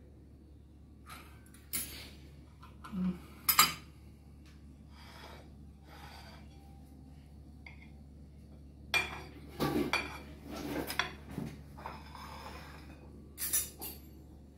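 Metal fork and knife clinking and scraping against a ceramic dinner plate as food is cut and picked up, in scattered strokes. The loudest clink comes about three and a half seconds in, and a run of clinks and scrapes follows about nine to eleven seconds in.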